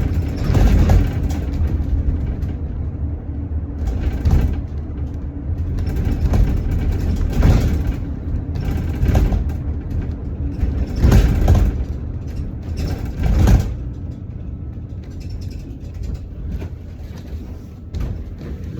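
City bus running, a steady low rumble with loud noisy surges of rattle and road noise every second or two, easing off in the last few seconds.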